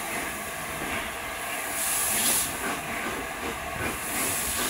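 LNER A4 Pacific steam locomotive 60009 rolling slowly, heard from on board: a steady hiss of escaping steam that swells twice over the rumble of the moving engine.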